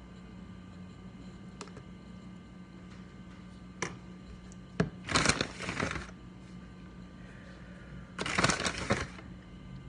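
Kitchen handling noises while rolling egg rolls: a few sharp clicks, then two loud bursts of crinkling and rustling about three seconds apart, over a steady low hum.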